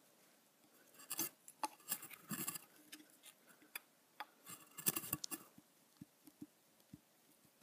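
Faint clicks, taps and scrapes of a metal model airliner being handled as a wing is worked into its tight snap-fit slot in the fuselage, in scattered clusters and then single ticks.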